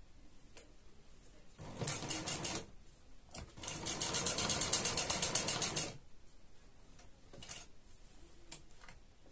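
Electric sewing machine stitching in two runs: a short burst about two seconds in, then a longer run of about two and a half seconds at a steady, rapid stitch rhythm. A few small handling clicks fall between them.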